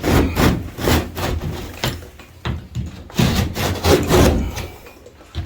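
Blade sawing through a plasterboard ceiling: rasping back-and-forth strokes, about two a second, easing off near the end.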